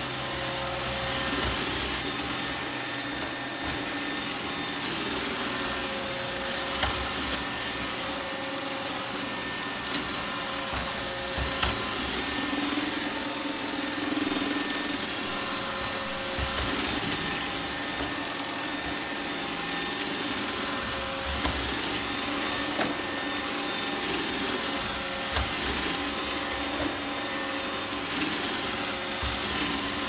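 iRobot Roomba 800-series robot vacuum running steadily: a constant motor whine and suction noise as it travels over a tiled floor, with a few brief clicks.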